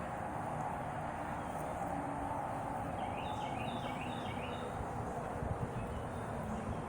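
Steady outdoor background noise of wind, with a bird giving a quick run of short, falling chirps about three seconds in.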